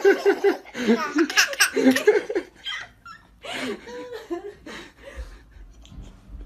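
Laughter in rapid bursts, heartiest over the first two or three seconds, then trailing off into softer laughs and voice sounds.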